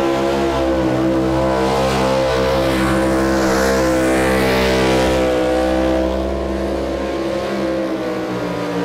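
Chevrolet pulling pickup's engine running at high, steady revs under heavy load as it drags the weight-transfer sled. It eases off slightly about six seconds in.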